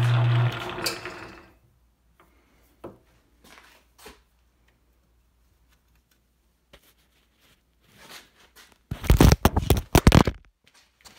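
South Bend 9A lathe, running in back gear, switched off about half a second in, its motor hum dying away over the next second as it spins down; a few faint clicks follow from handling the headstock. About nine seconds in comes a loud burst of knocks and rattling for about a second and a half as the phone doing the recording is dropped.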